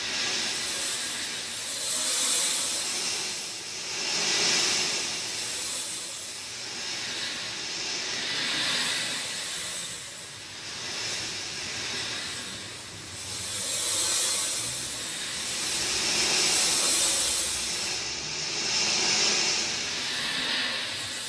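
Rain falling in a steady hiss that swells and eases every two to three seconds.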